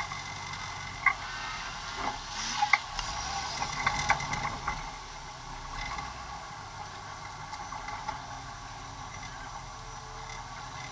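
Open roll-caged off-road vehicle driving slowly over rough dirt, heard from inside the cab: a steady low rumble with scattered clicks and rattles from the body and cage, busiest from about two to five seconds in.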